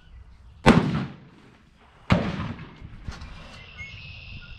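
Two gunshots about a second and a half apart, each a sharp crack followed by a short echoing tail.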